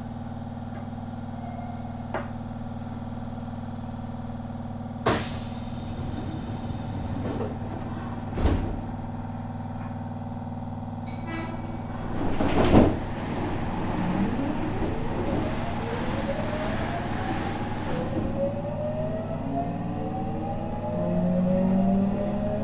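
Inside a Nagoya Municipal Subway 3050 series electric train standing at a station, under a steady low electrical hum. There are door knocks about 5 and 8.5 seconds in, a brief high tone near 11 seconds and a loud clunk just before 13 seconds. From about 14 seconds in, the VVVF inverter and traction motors whine, rising in pitch as the train accelerates away.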